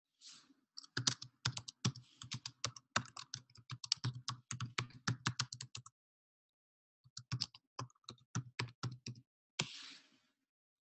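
Typing on a computer keyboard: two runs of quick keystrokes with a pause of about a second between them, and short hisses near the start and near the end.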